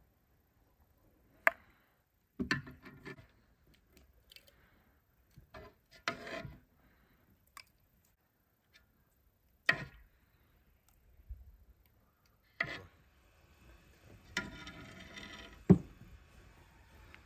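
Irregular knocks and short clatters of things being handled, a few seconds apart. Near the end there is a longer stretch of rustling and scraping that ends in one sharp, loud knock.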